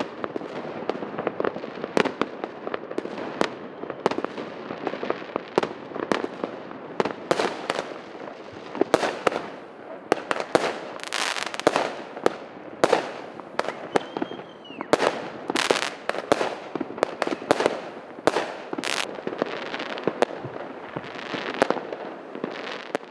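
Many fireworks and firecrackers going off: a continuous, irregular run of bangs and crackling pops, with a brief whistle about halfway through.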